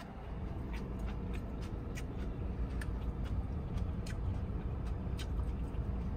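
A fork clicking and scraping against a plastic takeaway food tray at irregular moments, over a steady low rumble inside a car.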